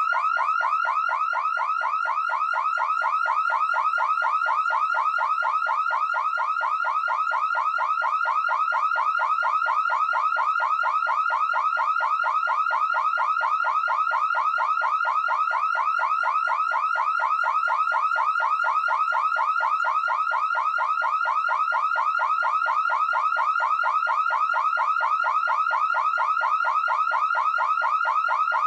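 Electronic security alarm sounding continuously: a rapid, unbroken series of short rising chirps repeating several times a second at an even pace.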